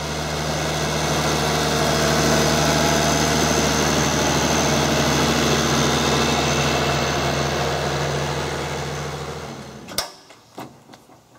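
Tractor engine idling steadily. It cuts off suddenly with a sharp click about ten seconds in, leaving only a few faint clicks.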